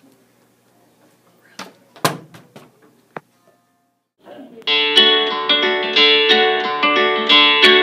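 A plastic water bottle is knocked over by hand and hits the table with a few sharp knocks, the loudest about two seconds in. Just before five seconds, loud guitar music starts, picked in quick repeated notes, and runs on.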